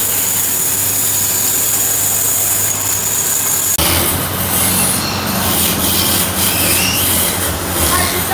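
A band saw runs steadily as a block of wood is fed to its blade. About four seconds in, the sound changes to belt-driven wood lathes turning, with a chisel scraping the spinning wood and high squeals near the end.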